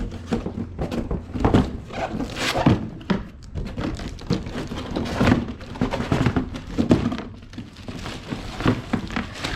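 Irregular thunks and knocks from handling and unboxing a replacement car window regulator with its motor, over a steady low hum.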